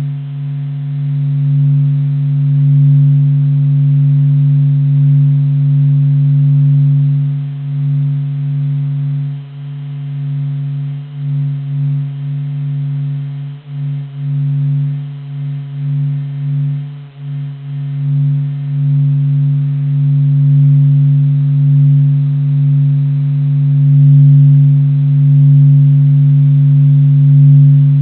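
Sonified "sound of the Sun", solar spacecraft data turned into audio: a deep, steady droning hum with fainter higher overtones, wavering in loudness and fluttering for a while in the middle.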